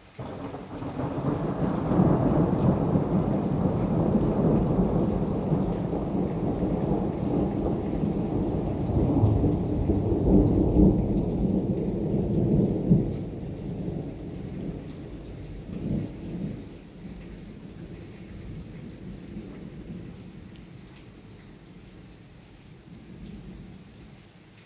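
A long rolling thunder rumble that builds within about two seconds and stays loud for some ten seconds, then falls away in smaller rolls, with one more swell about two-thirds of the way through, before dying down.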